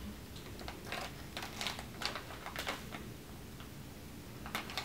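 Quiet, irregular light clicks and taps from small objects being handled at a table.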